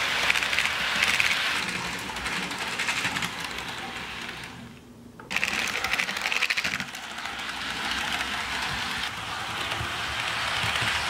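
HO scale model trains rolling on sectional track: a steady rattle of small metal wheels with rapid clicking over the rail joints. It drops out briefly about halfway through.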